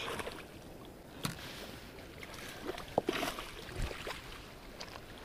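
A hooked flathead splashing in shallow water at the shoreline as it is drawn in on the line, with a few short splashes about a second in and around three seconds in over gently moving water.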